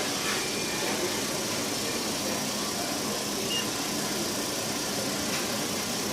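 Machinery running steadily: a continuous, even mechanical noise with no change in level.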